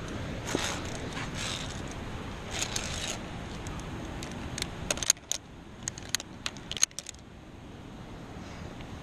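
Steel via ferrata carabiners clinking and jangling against each other and the steel safety cable. The clinks come as a quick run of sharp clicks between about five and seven seconds in, after a stretch of rustling and scraping from the climber's movement.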